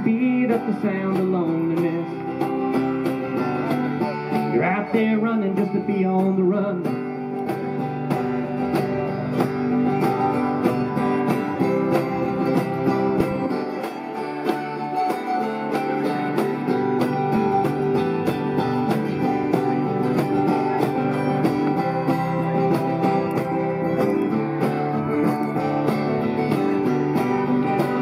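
A live acoustic country band playing: acoustic guitar strumming and mandolin over a steady cajon beat.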